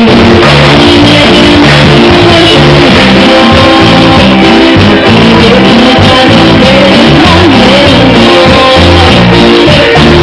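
Live band with a woman singing lead over electric guitar and drums, very loud.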